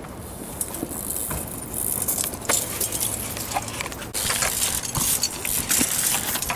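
BMX bike being ridden: steady tyre and air hiss with scattered clicks and rattles from the chain and parts.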